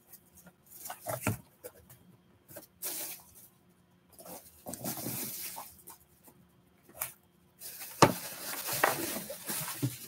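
Cardboard box being opened by hand: flaps pulled back and cardboard and packing scraped and rustled in several short spells, with a sharp knock about eight seconds in.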